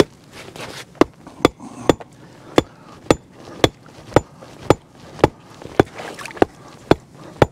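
A hatchet used as a hammer striking a stake at the water's edge at a steady pace, about two sharp blows a second, driving in the anchor for a beaver trap's safety wire.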